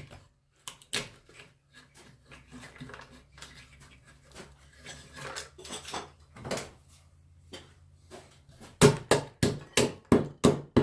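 Scattered light knocks and clatter of hard objects, then from about nine seconds in a quick, even run of sharp knocks, about three a second.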